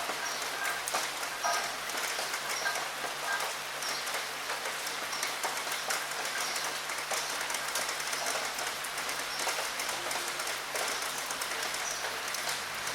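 Steady rain falling at a window, with many separate drops ticking sharply against it.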